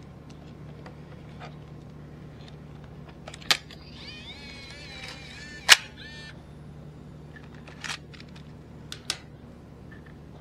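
Sharp plastic clicks as a Samsung SCD27 miniDV camcorder is handled: four of them, a second or two apart, with the loudest in the middle. A brief warbling chirp sounds around the loudest click, over a low steady hum.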